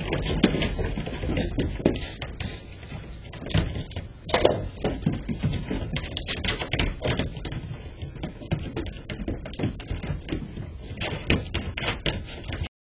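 Sheep hooves clattering and tapping irregularly on a wooden porch deck as a small flock shuffles about, heard through a security camera's microphone. The sound cuts off abruptly near the end.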